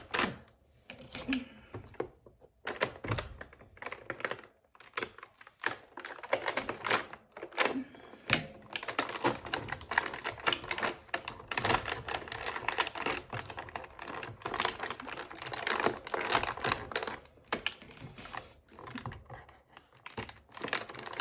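Hands opening a calendar door and the toy's packaging: a long run of irregular small clicks, taps and crackles.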